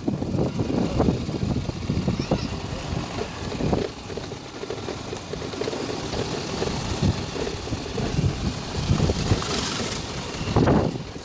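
A vehicle's engine running while travelling along a road, with wind rumbling unevenly on the microphone.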